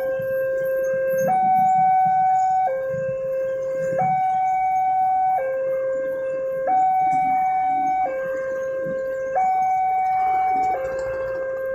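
Railway level-crossing warning alarm sounding from the loudspeaker on the crossing signal post: an electronic two-note tone that alternates evenly between a low note and a higher note, each held about a second and a third, while the barrier is down.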